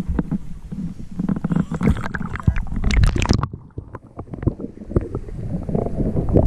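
Wind buffeting the microphone as a low rumble, with knocks and rustles of handling; the loudest stretch comes about two to three seconds in, then breaks off abruptly.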